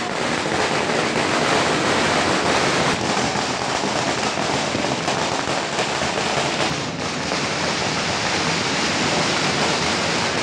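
Firecrackers bursting in a rapid, continuous crackle of closely packed bangs.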